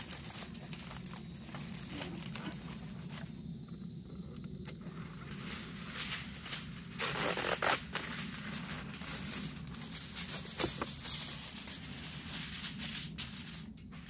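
Aluminium foil crinkling and crackling in irregular bursts as it is folded and pressed by hand around a cabbage. The crackles grow denser about six seconds in and are loudest around seven to eight seconds.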